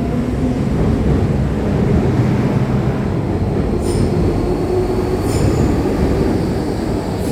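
MTR M-Train electric multiple unit pulling out of a metro station: a steady rumble of wheels on rail, with two brief faint high wheel squeals about four and five seconds in.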